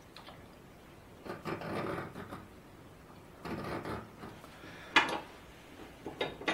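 Scriber scratching marking-out lines on a steel bar along an engineer's square: two short scratches, then a sharp metallic click about five seconds in as the square is moved, and a few lighter clicks near the end.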